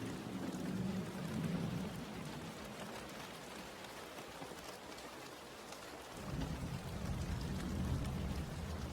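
Steady rain falling, an even hiss, with a low rumble of thunder that fades away after a couple of seconds and rolls in again just after six seconds in.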